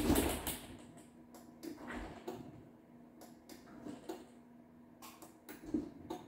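Faint clicks and light knocks as the programming buttons on the side of a Linear garage door opener's motor unit are pressed, over a low steady hum. A louder sound dies away within the first second.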